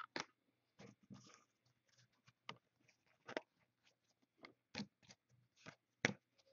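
Trading cards being flipped through by hand: faint, irregular soft clicks and snaps as card slides over card, the sharpest about six seconds in.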